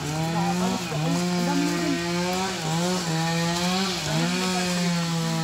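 Chainsaw running at high speed, a steady high drone that dips briefly and picks back up about three times.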